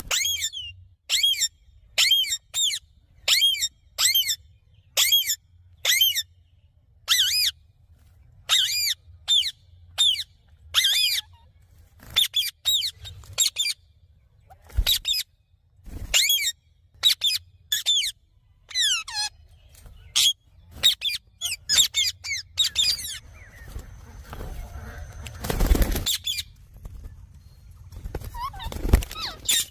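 Indian ringneck parakeet giving short, sharp, high-pitched calls over and over, at first about one or two a second, later more irregular. A rustling noise and a few dull thumps come in the last third.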